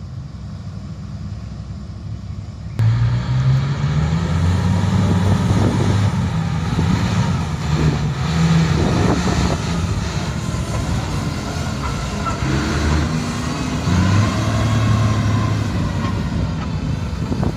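Komatsu HD785-7 haul truck's V12 diesel running: a low rumble at first, then about three seconds in it jumps sharply louder and stays loud, with an engine note that rises and falls and a hiss and rattle over it.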